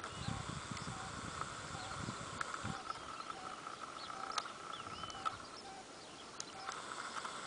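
Pond-side outdoor ambience: a steady chirring of insects or birds, with short calls repeating about twice a second and a whistled bird note about five seconds in. Low wind rumble on the microphone sounds in the first two seconds or so.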